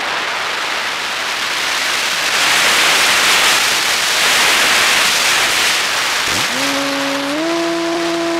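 Rushing wind noise on a model plane's onboard camera microphone while it glides with its motor off, louder in the middle. About six seconds in, the propeller motor spins up with a quickly rising tone, settles into a steady hum, and steps up in pitch again a second later.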